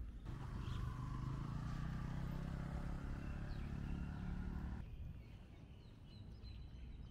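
Motorcycle engine running with a steady low hum, cutting off abruptly a little under five seconds in; faint bird chirps follow.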